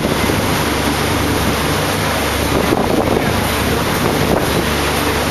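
Wind buffeting the microphone over the steady rush of water along the hull of a sailboat under way.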